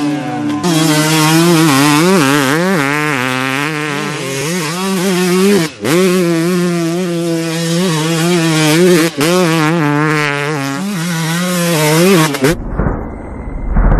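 Two-stroke dirt bike engine revving hard on a motocross track, its pitch rising and falling as the throttle opens and closes, with sharp drops off the throttle about 6 and 9 seconds in. Near the end the engine gives way for about a second and a half to a low rumble.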